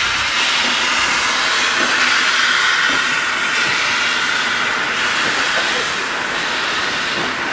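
Steam locomotive K163, a Victorian Railways K-class 2-8-0, hissing steam steadily as it hauls its carriages away, the wooden carriages rolling past on the rails.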